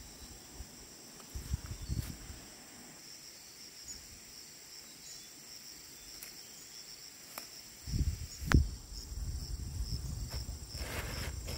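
Insects chirping in a steady, pulsing high rhythm, with a few low thumps about two seconds in and a sharp knock about eight and a half seconds in, followed by low rustling.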